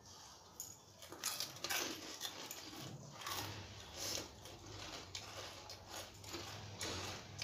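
Irregular eating and handling noises from people eating panipuri: short rustles and crunches with light clinks of steel plates, the first loud ones about a second in.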